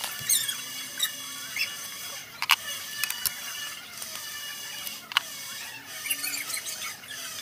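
Small metal clicks and scrapes of hand tools working the oil filter cover bolts on a Yamaha R15 engine, with two sharp clicks about two and a half and five seconds in. High squeaky chirping sounds behind them.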